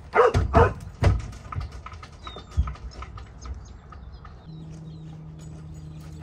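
A horse's hooves thudding on the wooden floor of a horse trailer as it steps up and in, with two sharp dog barks right at the start. A steady low hum comes in about two-thirds of the way through.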